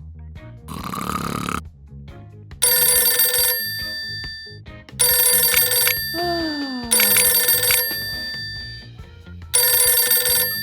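A telephone ringing four times over background music, each ring about a second long with a lingering ring-out. It comes after a single snore. A falling tone slides down between the second and third rings.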